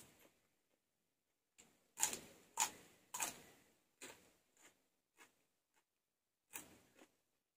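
Someone chewing crunchy raw vegetables: a string of about eight crisp crunches, the loudest a little after two seconds in, each fading quickly.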